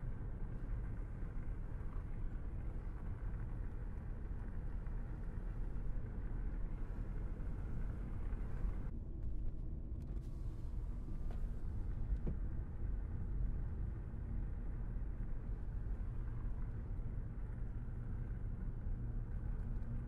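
Car driving along a road: a steady low rumble of engine and tyre noise, its higher hiss easing for a few seconds about nine seconds in.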